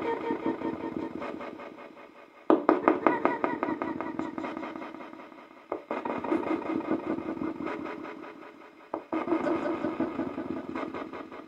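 Spirit communication device (ghost box) playing choppy, rapidly chopped fragments of sound through its speaker and echo. The sound comes in repeated bursts about every three seconds, each starting abruptly and fading away.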